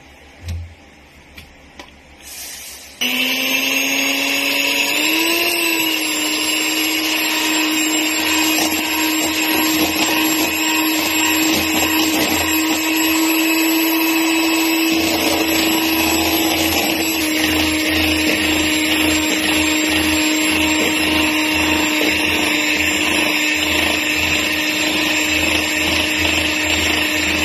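Electric hand mixer switched on about three seconds in, its motor running steadily as the beaters churn a thick creamy mixture in a stainless steel bowl. The motor's pitch rises over the first couple of seconds as it comes up to speed, then holds steady.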